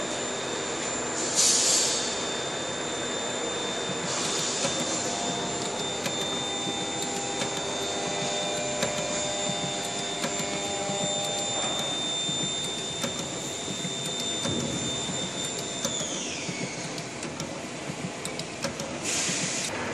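SAVEMA feeder-conveyor belt and SVM 32I thermal transfer printer running as they feed and print cartons: steady machine noise with a high whine that glides down in pitch about sixteen seconds in. Short hissing bursts come near the start and again near the end.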